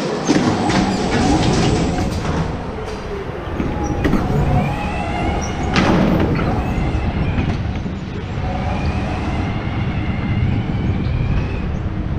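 Onboard sound of a racing go-kart at speed on an indoor concrete track: a steady mechanical rumble, with tyres squealing through the corners. Short knocks in the first second and a sharp knock about six seconds in.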